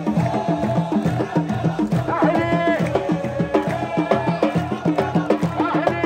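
Sports fans' chanting music: a fast, steady drum beat under a sung melody.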